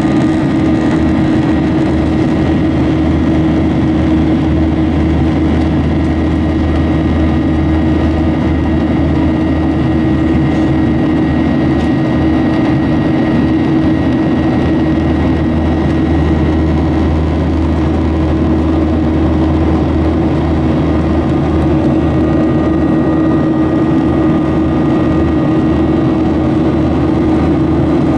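Boeing 737 turbofan engine at climb power heard from inside the cabin beside the wing: a steady, loud drone with a low hum and a faint high whine, unchanging as the airliner climbs out after takeoff.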